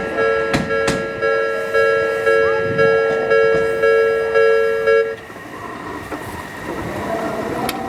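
Japanese railway level-crossing warning bell ringing its repeated electronic clang about twice a second, then cutting off suddenly about five seconds in as the crossing clears. A few sharp knocks come in the first second, and a noisy rumble follows after the bell stops.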